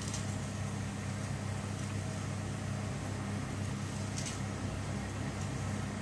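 A wooden spoon stirring thickening soup in a pan, faint against a steady low hum, with one faint tick about four seconds in.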